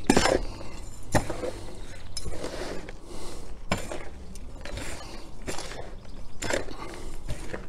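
Hand trowel scraping and scooping through a gritty potting mix of compost, coir, sieved topsoil and perlite in a tub, being stirred together: irregular crunching scrapes with a few sharper strokes against the side of the tub.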